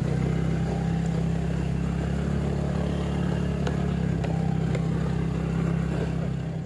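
Motorcycle engine running at a steady pace while riding over a rough stone track, with a few sharp knocks and rattles from the bumpy surface.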